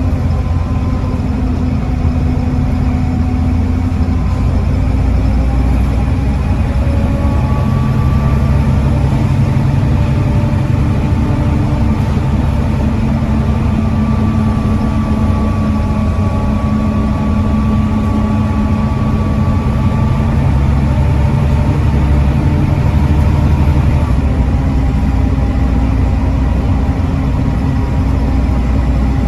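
Volvo D7C 7.3-litre diesel engine of a Volvo B7TL double-decker bus running steadily. Its note changes about seven seconds in and returns to the earlier note near the end.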